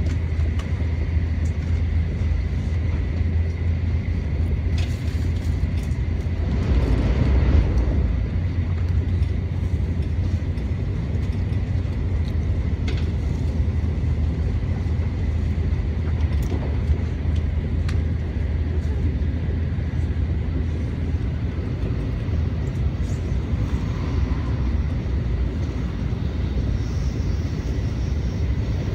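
N700A Shinkansen running at speed, heard inside the passenger cabin: a steady low rumble with a faint high whine above it, swelling briefly about seven seconds in.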